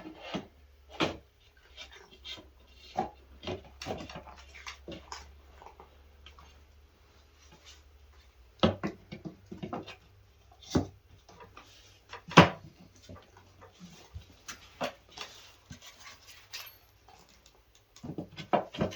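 Irregular knocks, taps and clicks of things being handled and set down, with a few sharper knocks in the second half.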